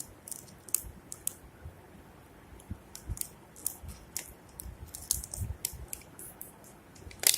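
A phone and its cardboard box and packaging being handled: scattered light clicks, taps and rustles as the phone is lifted out, with one sharper click near the end.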